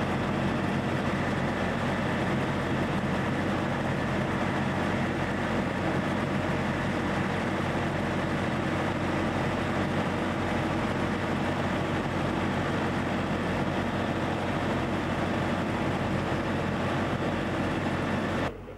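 Heavy truck's diesel engine idling steadily, a constant low drone.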